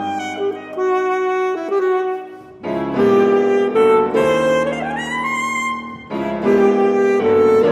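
Saxophone and grand piano playing classical music together. The saxophone holds long notes and slides smoothly upward about five seconds in, and the playing pauses briefly twice.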